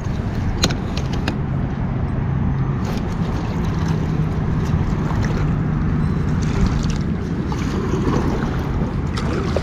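Steady wind noise on the microphone over lapping water, with a faint low hum and a few sharp clicks in the first second and a half.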